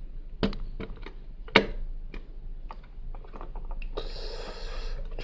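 Small plastic Lego pieces clicking and knocking as parts and gears are handled and snapped into place, with the sharpest click about a second and a half in. A rustling hiss starts near the end.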